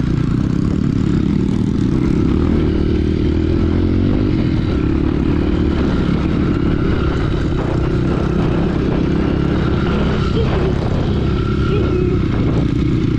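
Trail motorcycle engine running steadily while being ridden.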